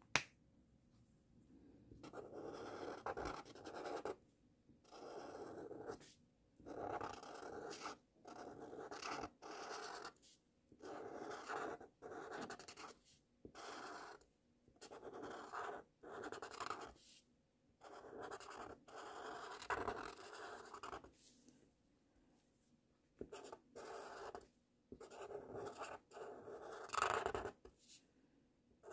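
Felt-tip marker scratching across paper while writing cursive letters, in strokes of about a second each with short pauses between them. A sharp click right at the start.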